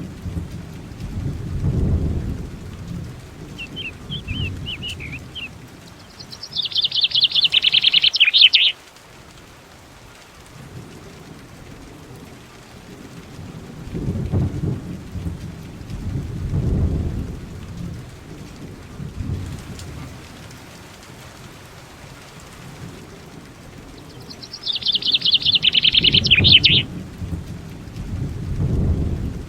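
Rain falling with deep rolls of thunder swelling and fading several times, and a bird's rapid trill heard twice, about seven seconds in and near the end.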